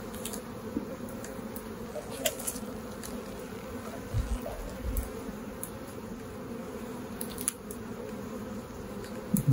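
Steady hum of a honeybee colony in an opened hive box. A few sharp clicks and two low knocks come from the hive tool prying the first, propolis-stuck frame free.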